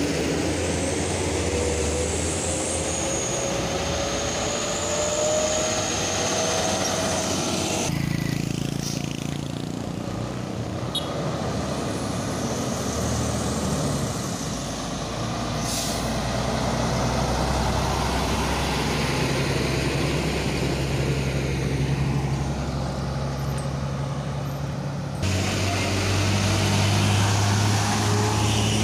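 Diesel truck engines running under load as trucks climb a steep hill, with a rising whine over the first few seconds. The sound changes abruptly twice, about a third of the way in and near the end.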